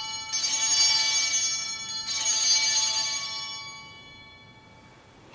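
Altar bells (a cluster of small sanctus bells) rung twice, about two seconds apart, ringing on and fading out by about four seconds in. They mark the elevation of the consecrated host.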